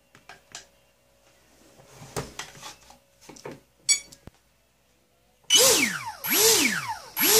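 Electric motor and folding propeller of an F5D pylon racer model run up in short throttle blips. After a few light handling clicks, a whine starts suddenly about five and a half seconds in. It falls away, rises and falls once more, and starts rising again near the end.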